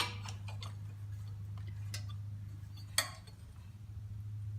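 A few sharp metal clicks and clinks from hand-working the governor spring and linkage on a riding mower's engine, the loudest right at the start and about three seconds in, over a steady low hum.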